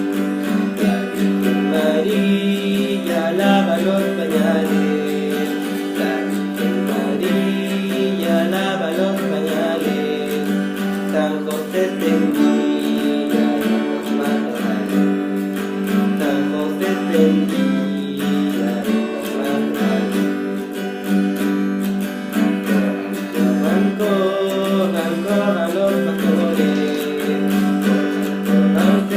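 Background music: acoustic guitar playing, with a voice singing.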